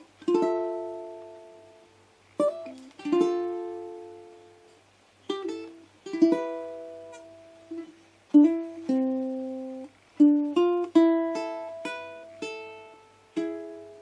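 ACE D65 all-solid-mahogany tenor ukulele played slowly: rolled chords and single plucked notes, each left to ring and fade before the next.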